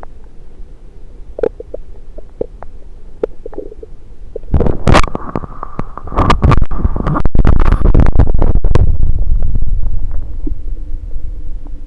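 Stomach gurgles heard through a stethoscope pressed to the belly: small scattered pops and bubbling at first, then a much louder, rougher stretch of rumbling from about halfway through that lasts several seconds before settling back to quieter gurgling.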